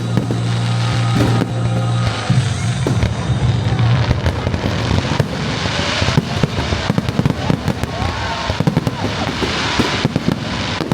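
Firework display going off over music: a dense run of bangs and crackling, with a few whistling fireworks gliding in pitch in the second half.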